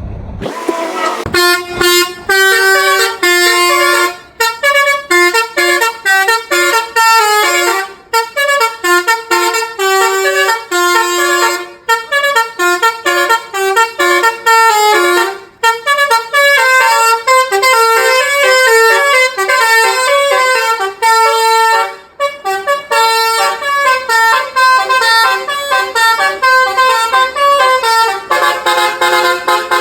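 Indonesian tour bus's "telolet" multi-tone horn, a basuri type, playing a fast tune of short, stepped horn notes in repeated phrases with brief pauses between them. It starts about a second in.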